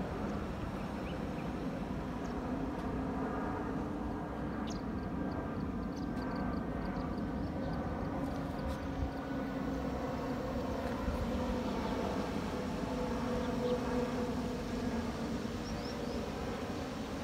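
Jet airliner flying overhead: a steady engine drone with faint hums that drift slowly in pitch. A short run of faint high chirps comes about five seconds in.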